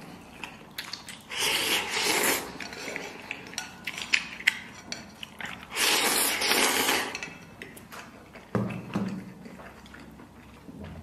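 A person slurping instant noodles in two long, loud draws, about a second in and again around six seconds, with wet chewing and small clicks of chopsticks between them.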